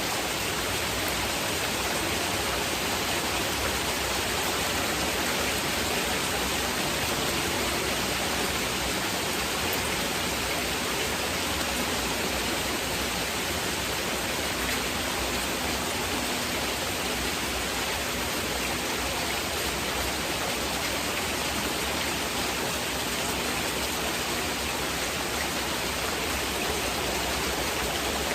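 Heavy rain falling steadily, an even hiss with no single drops standing out, blended with masking noise.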